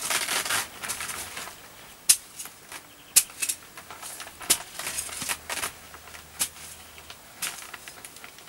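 A spade digging and scooping soil in a metal wheelbarrow: irregular crunching scrapes and sharp knocks, a few per second.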